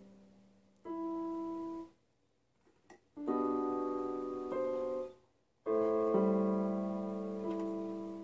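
Yamaha portable electronic keyboard on a piano voice, played slowly: three held chords, each fading away, with short silent pauses between them, the halting pace of a beginner working through a song.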